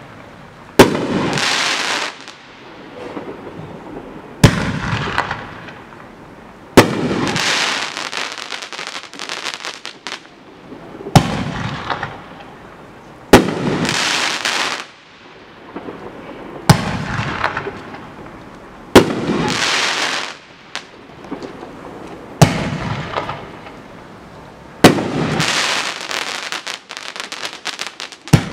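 A 500-gram consumer fireworks cake (Dominator DM513 Double Time) firing aerial shells, about ten sharp bangs two to three seconds apart. Each bang is followed by a second or two of crackling from the burst that fades away.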